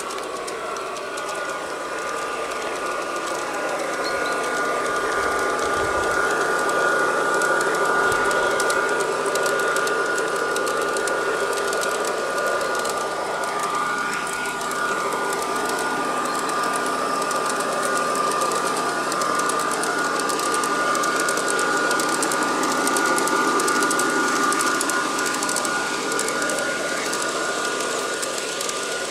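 LGB garden-scale model of a DB class 220 diesel locomotive running along the track with its short freight train: a steady high whine, louder as it passes close by and easing near the end.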